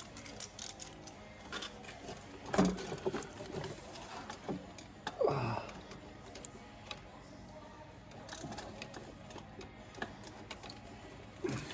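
Ratchet clicking in short runs, with scattered tool knocks, while an oil filter is worked loose on a Toyota 2JZ-GE engine.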